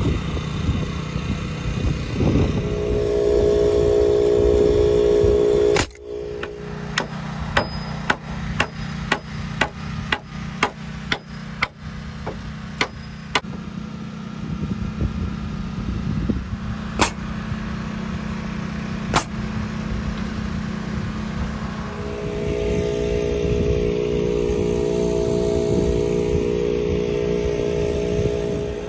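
A hammer drives nails into steel joist hangers on wooden roof trusses, with a run of sharp blows about two a second, then two single blows. A steady mechanical hum, like a running motor, is heard before and after the hammering.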